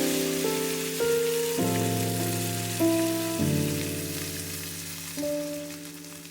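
Background music of keyboard chords that change about every second and fade out, over a steady hiss typical of food sizzling or simmering in a pot.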